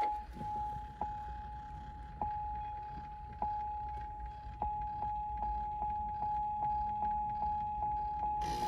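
Truck cabin warning chime: short dings over a steady high tone, about one a second at first, then speeding up to two or three a second about halfway through, over a low rumble. Just before the end, sound from the factory Chevy Bose radio comes on as the radio finishes starting up.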